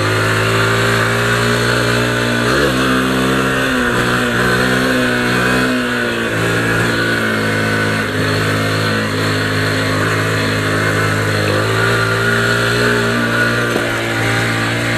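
Honda CG 150 Fan's single-cylinder four-stroke engine running steadily as the motorcycle is ridden, heard from on the bike. About two and a half seconds in the engine pitch dips and wavers for a few seconds before settling again.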